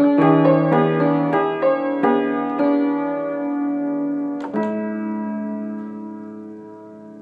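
Upright acoustic piano playing a slow melody of single notes over held bass notes, then a chord struck about four and a half seconds in and left to ring, slowly fading.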